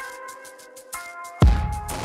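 Electronic background music: held synth chords over a fast, even hi-hat tick, with a heavy bass hit that drops in pitch about one and a half seconds in.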